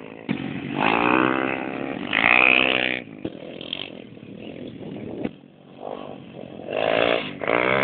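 Small four-stroke pit bike engines (125 and 140 cc) revving hard as the bikes race. The revs rise in pitch in two bursts, about a second in and again near the end.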